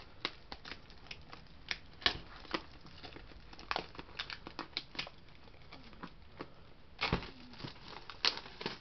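Clear plastic shrink wrap on a movie box set being picked at, torn and peeled off: irregular sharp crinkles and crackles, with a denser burst about seven seconds in.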